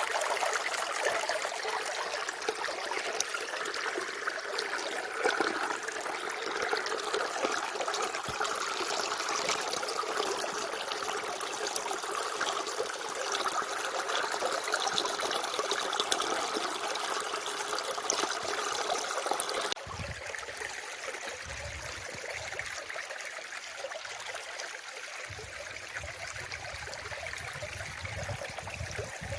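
Running water trickling steadily. About two-thirds of the way through it cuts abruptly to a quieter, thinner water sound with some low rumbles underneath.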